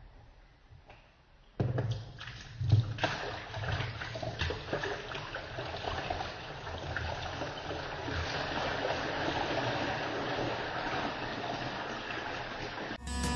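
Water running and splashing into a plastic bucket, starting suddenly about a second and a half in and carrying on steadily as the bucket fills.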